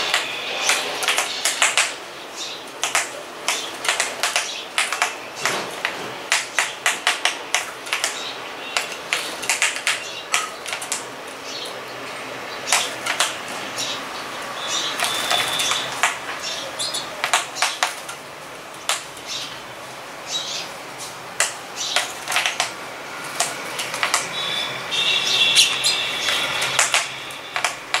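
A male house sparrow pecking at its own reflection in a mirror: irregular runs of sharp beak taps. Sparrow chirping comes in briefly about halfway and again near the end.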